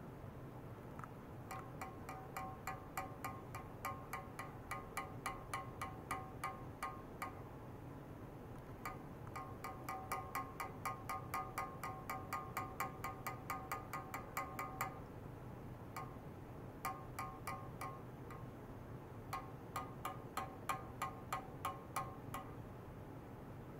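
Pulsed ultrasonic oscillation from a probe dipped in a water-filled stainless steel tray, heard as short ringing pulses of steady pitch, about three to four a second. The pulses come in runs broken by pauses of a second or two.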